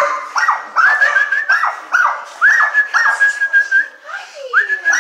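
Dogs in pound kennels whining and yelping, a string of high-pitched cries that rise and drop off about twice a second, with one longer held whine about three seconds in and a lower falling cry near the end.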